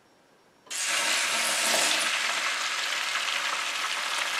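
Beaten eggs sizzling as they are poured onto the oiled, ceramic-coated surface of an electric griddle set to about 350 degrees. The sizzle starts suddenly just under a second in and then holds steady.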